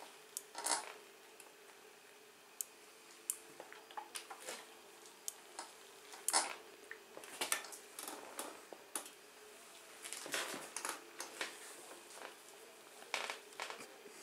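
Pitbike front brake lever being squeezed and released by hand, a scatter of light clicks and rattles, the loudest about a second in and again at about six seconds; the freshly rebuilt and bled front brake master cylinder is being tested.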